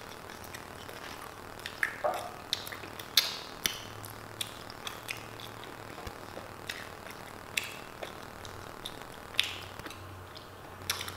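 Close-miked eating sounds of a burrito being chewed: scattered short, wet mouth clicks and smacks.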